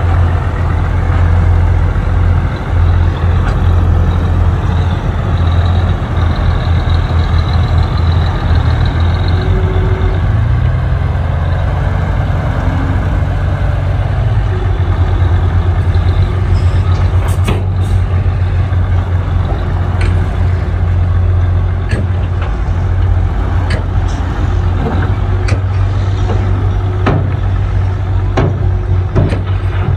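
Heavy construction machinery's diesel engine running loudly and steadily. Its pitch rises briefly and falls back about ten to fourteen seconds in. From about seventeen seconds on, a series of sharp knocks and clanks sounds over it.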